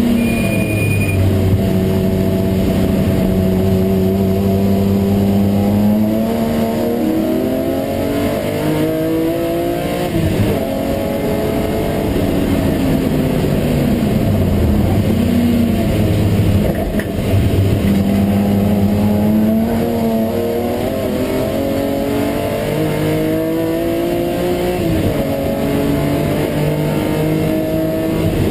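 In-car sound of a BMW M3 race car's engine at racing speed: its pitch climbs steadily as it accelerates, then drops sharply at gear changes or lifts for corners, several times over, with road and wind noise beneath.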